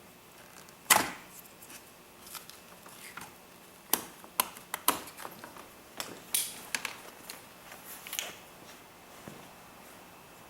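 Hands working the old glow plug wiring harness loose, giving an irregular scatter of sharp clicks and clacks. The loudest comes about a second in, and a cluster follows around four to five seconds in.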